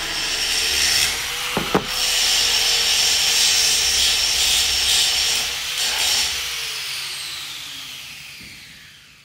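Workshop power tool running with a steady grinding noise, with two sharp knocks about one and a half seconds in; after about six seconds its pitch falls as it winds down, and the sound fades away.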